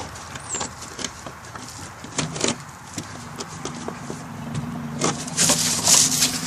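A stick knocking and scraping in the crawlspace under a house, with a louder rustling scrape about five seconds in. A low steady drone starts about two seconds in; the uploader takes it for something growling beneath the house.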